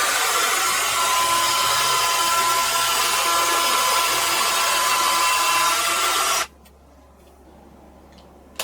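Power drill boring a mounting hole in the ceiling: a steady run of about six seconds with a constant whine, cutting off suddenly, then a short burst at the very end.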